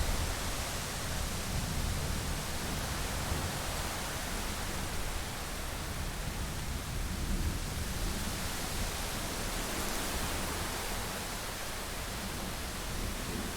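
Steady, even hiss of rain from a thunderstorm ambience recording. A low thunder rumble is dying away in the first moment.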